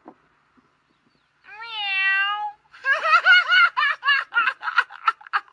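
A man laughing loudly in rapid, hearty bursts that shorten and fade toward the end, after a long drawn-out high-pitched vocal call.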